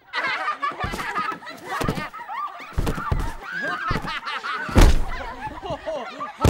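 Several girls shrieking and laughing in a pillow fight, with pillows thudding against bodies about five times, the loudest hit about five seconds in.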